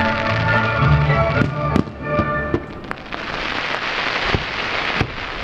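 Aerial fireworks shells bursting with sharp bangs over music. The music drops away about three seconds in, leaving a dense hiss from the burning effects and a couple more bangs.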